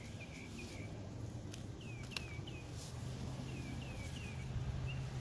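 Faint outdoor ambience: a small bird repeating short, downward-slurred chirps, over a faint insect drone and a steady low hum.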